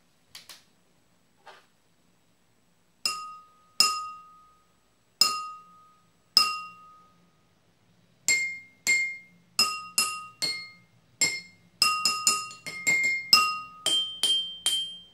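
Drinking glasses struck with a pencil, each strike ringing with a clear pitched tone. After a couple of faint taps come four slow strikes on one glass, then from about eight seconds in quicker strikes alternating between two or three glasses of different pitch.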